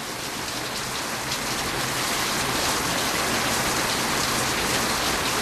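Heavy rain pouring down in a thunderstorm downpour, a dense, steady hiss. It is really loud.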